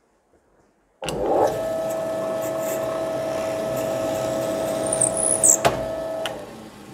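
Electric drill running steadily as it bores a 4.5 mm hole in plywood; it starts about a second in, there is a sharp click near the end, and the motor winds down just before the end.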